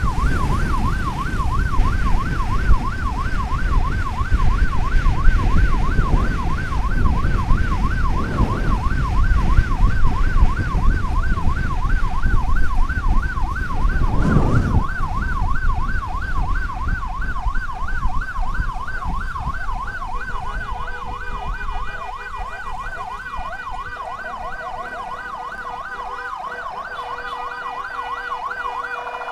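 Emergency vehicle siren in a fast electronic yelp, warbling about three times a second, over heavy wind and road rumble. Midway through, a loud rushing swell rises and falls. In the last several seconds the rumble eases and other steady tones join the siren.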